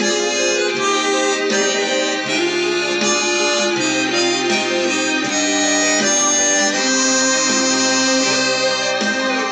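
Hohner Chrometta 12 chromatic harmonica playing a held, flowing melody over a backing track with a low bass line.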